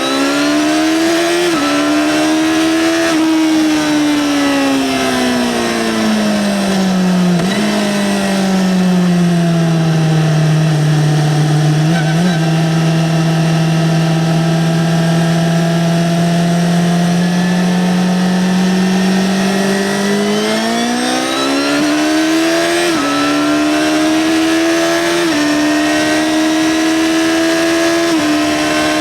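2009 Yamaha XJ6-N's 600 cc inline-four on its stock exhaust, heard while riding. It revs up with an upshift about a second and a half in, then the revs fall away and hold steady for around ten seconds. It then accelerates again, with three quick upshifts near the end.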